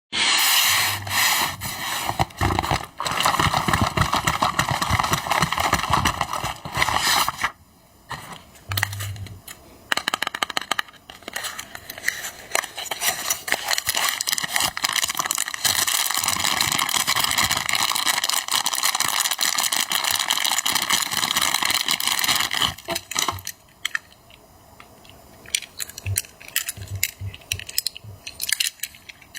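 Packaging of a boxed die-cast toy being handled and opened: long stretches of dense crinkling and rustling with scrapes, broken by short pauses with scattered clicks and taps. The crinkling stops after about 23 seconds, and light taps follow.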